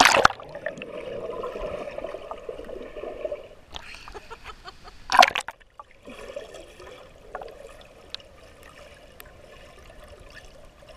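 A small child jumping feet-first into a swimming pool with a splash, followed by muffled bubbling and gurgling heard with the camera underwater. A second brief splash comes about five seconds in.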